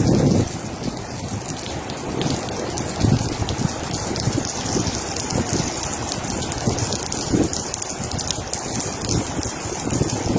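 Heavy rain falling steadily: a dense hiss of drops with scattered low thuds. A low rumble that was loud at the start dies away about half a second in.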